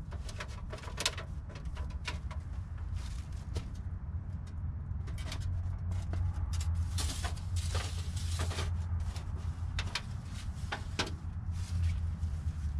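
Thin rolled titanium stovepipe being handled and pushed through a tent's stove jack: scattered light clicks, taps and rustling scrapes, busiest in the middle. A steady low rumble runs underneath.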